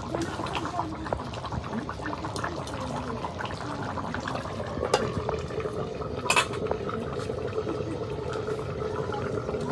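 A metal spoon clinking and scraping against a cooking pot of curry, in scattered clicks, with a sharper clank about six seconds in.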